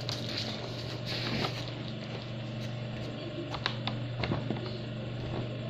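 A kitten playing with a small ball on a tiled floor: light scuffling near the start, then a few sharp taps and clicks around the middle, over a steady low hum.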